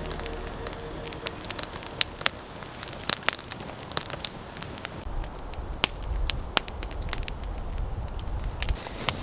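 Campfire crackling, with irregular sharp pops.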